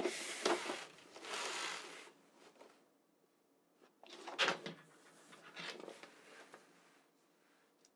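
Packaging and a cloth gaming mousepad being handled during an unboxing: rustling and sliding for the first two seconds, a sharper knock about four and a half seconds in, then a few softer rustles.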